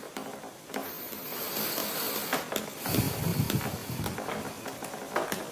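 Handwriting: a pen scratching steadily across a writing surface as an answer is written out, with small breaks between strokes.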